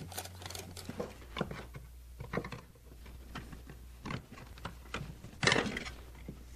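Hand tin snips cutting a hammered, annealed copper sheet, a series of irregular snips, the loudest a little over five seconds in.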